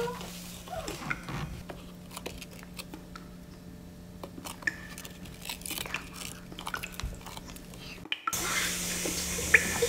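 A metal spoon stirring slime in a small glass bowl: a scatter of light, irregular clicks and scrapes of spoon on glass over a low steady hum. Just after eight seconds the sound cuts out briefly, and a louder hiss follows.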